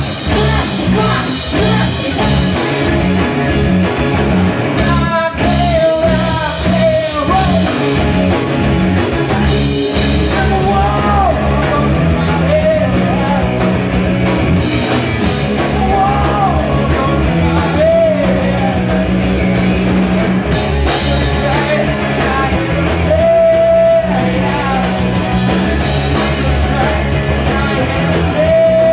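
Live rock band playing loud: electric guitars through Marshall amplifiers and a drum kit, with a man singing over them.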